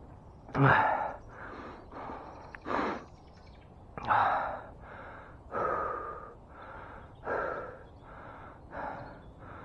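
A man breathing hard and panting, loud breaths in and out roughly once a second: catching his breath after exertion.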